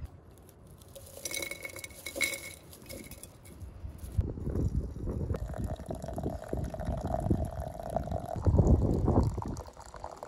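A few glass clinks, then water poured into a glass teapot of dried rosebuds, the pour's pitch rising slightly as the pot fills.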